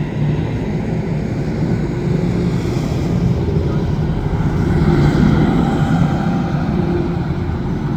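Road traffic: a motor vehicle's low rumble swelling to a peak about five seconds in as it passes, then easing off.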